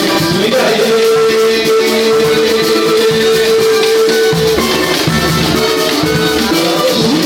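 Samba-pagode band music, with drums and a shaker. One long held note runs from about half a second in to about four and a half seconds, after which the bass and drums come in fuller.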